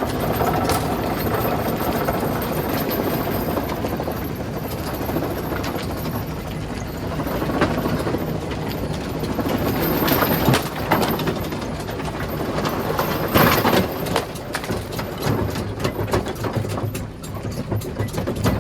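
Rock crusher and heavy machinery running steadily, with several sharp knocks of rock striking metal.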